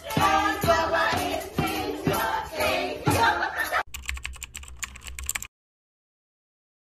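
A group singing along with hand percussion: shakers, maracas and a drum beaten in time. At about four seconds this cuts off and a rapid keyboard-typing sound effect clicks for about a second and a half, then stops.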